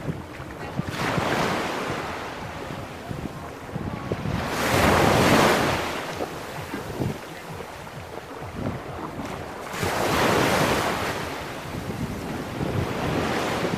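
Small waves breaking and washing up the shore of a calm bay, a swell of surf about every four to five seconds, with wind buffeting the microphone.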